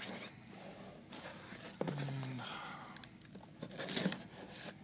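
Box cutter slitting the packing tape along a cardboard box's seam, in several scraping, crackling strokes. The loudest stroke comes near the end.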